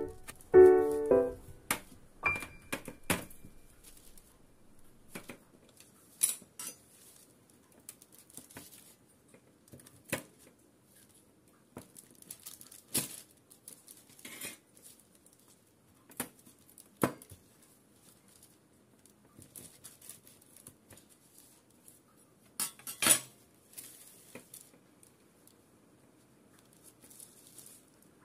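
Scattered sharp clicks and taps of a metal knife and spatula against a metal tray and a disc of hard, overcooked honeycomb toffee, as pieces of the brittle candy are pried and broken off. A few piano notes sound at the very start.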